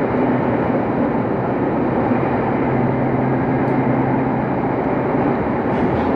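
Inside a JR Nippō Main Line local electric train running on the line: a steady rumble of wheels on rail with a low hum from the car. A few rail-joint clicks come in near the end.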